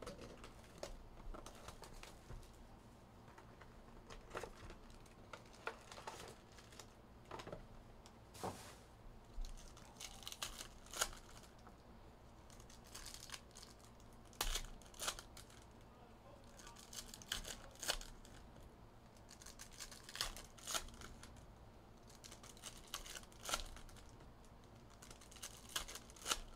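Trading card pack wrappers being torn open and crinkled, in short, scattered rips and crackles.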